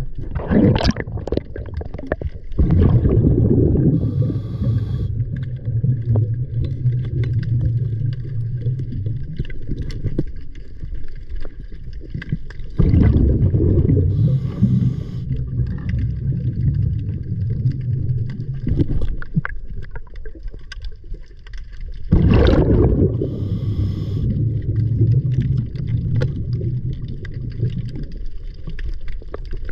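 Muffled sloshing and rushing of sea water around a waterproof camera, mostly low in pitch. It swells loudly three times, about ten seconds apart, with a few sharp knocks in between.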